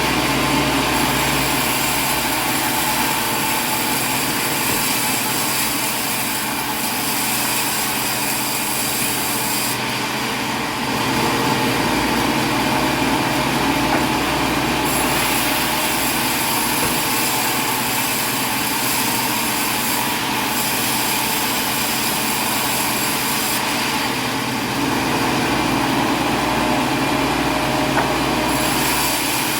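A motor running steadily, with several steady tones and a constant hum.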